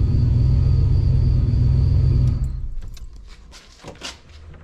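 Ford Bronco engine idling steadily, running rich, then switched off about two seconds in, the rumble dying away quickly. A few faint clicks and knocks follow.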